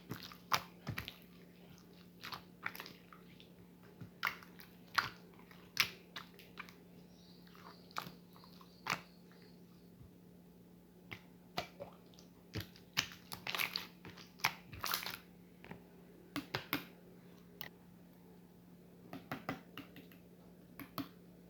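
Slime being squeezed and stretched by hand, giving irregular wet clicks and small air-pocket pops, several a second in clusters.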